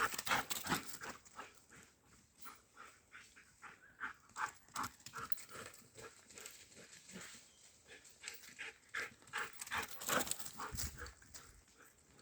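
A dog making a quick run of short, repeated sounds, loudest about the first second and again around ten seconds in.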